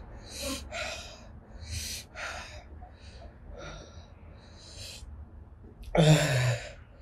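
A woman breathing hard through her open mouth in short hissing puffs, about two a second, pulling in air against the burn of the Carolina Reaper chillies she has just eaten. About six seconds in she lets out a loud groan that falls in pitch.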